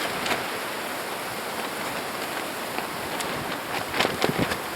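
Strong, cold wind blowing in a steady rush, with a few short sharp rustles near the end.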